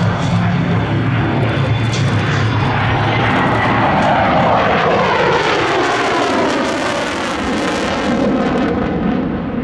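Sukhoi Su-27's twin turbofan jet engines as the fighter makes a loud pass, a rushing jet noise whose pitch falls steadily from about three seconds in as it goes by.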